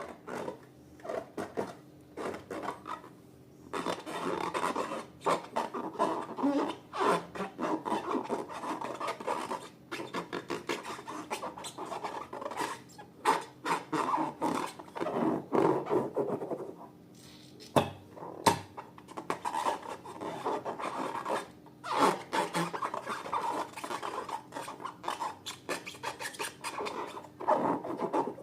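Slime being handled and mixed: bursts of sticky crackling, clicking and rubbing with short pauses between them.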